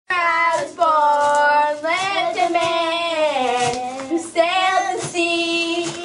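A high voice singing in long held notes, the pitch wavering on the sustained ones.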